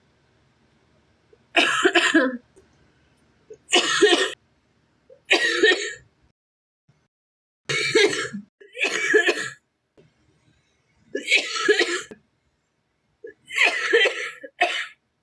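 A sick girl coughing on purpose, about seven separate coughs of roughly a second each, with short silences between them.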